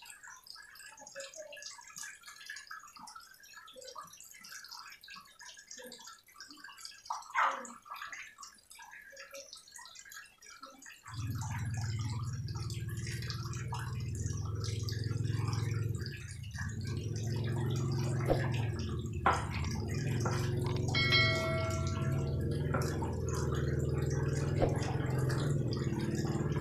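Cleaver slicing meat on a wooden chopping board, faint soft cuts and taps. About eleven seconds in, a steady low hum starts suddenly and goes on louder than the cutting.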